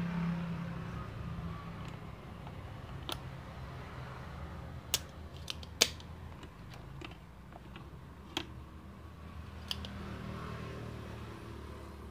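Spring-loaded desoldering pump clicking sharply as it is cocked and fired, several single snaps with the loudest two about five and six seconds in, while the leads of an electrolytic capacitor are desoldered from a TV inverter board. A low steady hum runs underneath.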